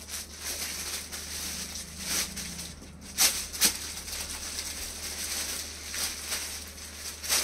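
Clothes and their wrapping being handled and rustled, with two sharp rustles about three seconds in.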